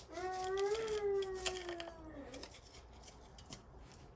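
A person's voice holding one long note for about two seconds that dips at the end, with faint clicking from a seasoning shaker being shaken over a pot.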